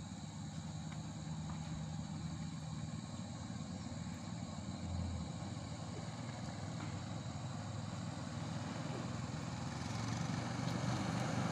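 Motorcycle engine running as the bike rides toward the microphone, growing steadily louder near the end, with a car's engine following behind it.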